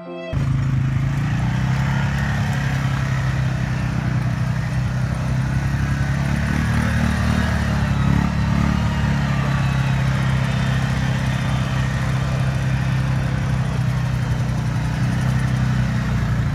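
ATV (four-wheeler) engine running steadily as the quad drives across ice, the revs lifting briefly midway and then settling.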